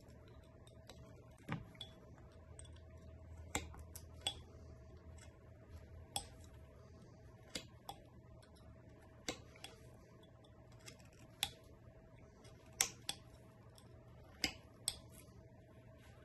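Carving knife cutting lines into a very hard wooden stick, each cut giving a short, sharp click. There are about a dozen clicks, irregularly spaced a second or two apart, over a faint steady hum.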